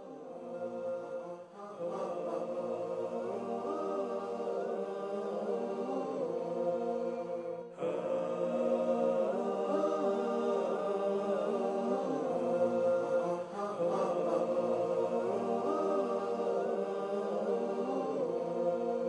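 Closing theme music: a chanted vocal melody with sustained tones and winding pitch glides, without drums. It breaks off briefly about eight seconds in and starts again.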